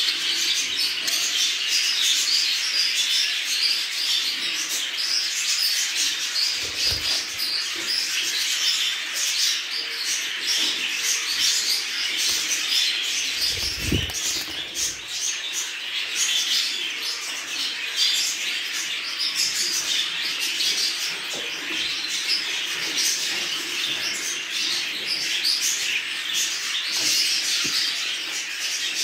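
A room full of caged budgerigars chattering and chirping together in a continuous dense warble. There is a single dull thump about halfway through.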